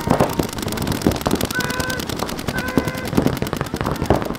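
Paintball markers firing in rapid streams: a fast, even run of sharp pops, several guns shooting at once.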